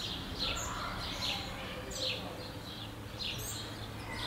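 Small birds chirping: short, falling chirps repeating roughly twice a second, over a steady low hum.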